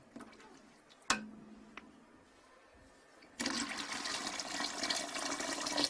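Water poured from a glass pitcher into a large aluminium cooking pot, a steady splashing that starts about three and a half seconds in. It is the water going onto the spices, oil and lentils for harira. Earlier there is a single sharp knock.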